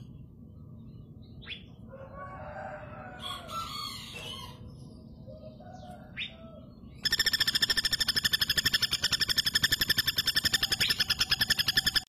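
Female common flameback woodpecker giving its long, rapid rattling trill, which breaks in suddenly about seven seconds in after a quieter stretch with a few faint short sounds.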